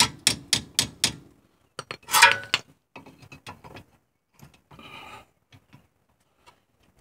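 Light hammer taps on metal, evenly about four a second, stopping about a second in. About two seconds in there is a louder metallic clank, then scattered small clicks and rattles of tools and parts being handled.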